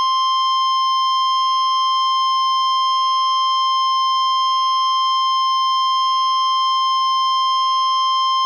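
NOAA Weather Radio 1050 Hz warning alarm tone: one long, loud, unbroken beep that cuts off sharply near the end. It is the attention signal that comes before an emergency warning, here a tornado warning.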